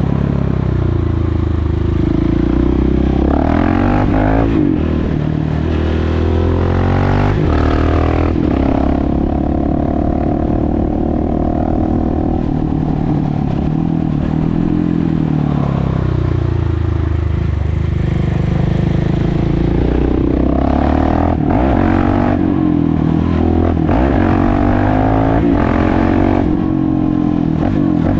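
KTM 690 SMC R's single-cylinder four-stroke engine, run with the exhaust's dB killer removed and heard from on the bike while riding. The pitch rises and drops sharply twice in the first ten seconds, as the bike accelerates and shifts up. It then falls away and picks up again several times as the rider rolls off and on the throttle.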